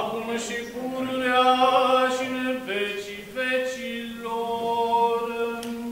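A male voice chanting an Orthodox church chant, holding long, slow notes and moving from one pitch to the next every second or two.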